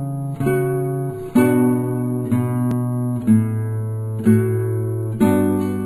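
Background acoustic guitar music, with a new strummed chord about once a second.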